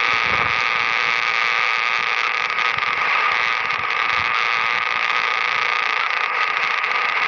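Power line noise picked up on an HF ham radio receiver and heard through its speaker: a steady, ugly noise with a thin steady tone running through it.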